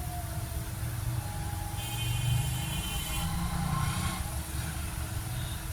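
A motor vehicle's engine rumbling steadily, growing louder about two seconds in, with a brief high whine.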